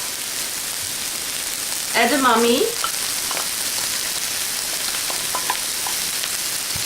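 Steady sizzle of vegetables frying in hot oil in an electric wok on high heat (350 degrees), with a few faint clicks.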